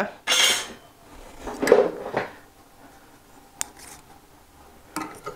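Pencil scratching a short mark onto an oak workpiece, followed by a few sharp clicks of hand tools being handled on the bench.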